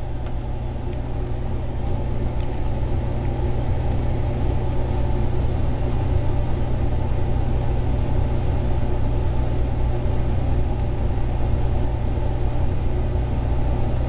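A steady, unchanging low mechanical hum with several fixed tones in it.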